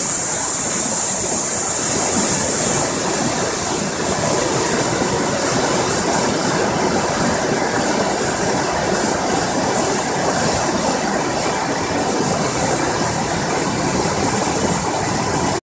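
The flooded River Kennet rushing and churning in fast white water, a loud, steady rush of water noise.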